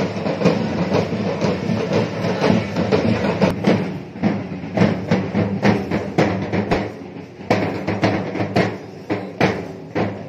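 Chenda melam, the Kerala temple drum ensemble of chenda drums, playing loud. It begins as a dense rolling beat, and from about four seconds in it breaks into sharp, separate strokes.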